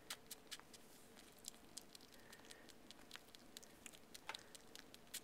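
Siamese kitten suckling on a plush toy: faint, irregular little clicks and smacks, several a second.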